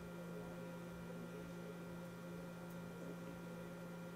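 Faint room tone with a steady low hum.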